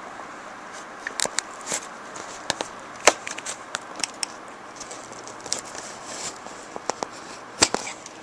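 Cardboard product box being handled and opened by hand: a string of irregular sharp clicks, taps and scrapes.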